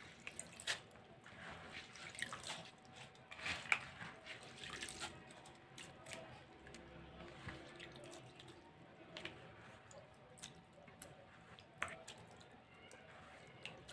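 A hand scooping through soaked rice and urad dal in a bowl of water, with faint wet clicks and drips here and there.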